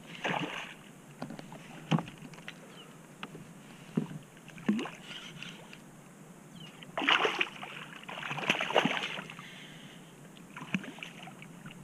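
Fighting a hooked redfish from a plastic kayak: scattered sharp knocks of gear against the hull, and splashing water as the fish thrashes near the boat, loudest in two bursts about seven and eight to nine seconds in.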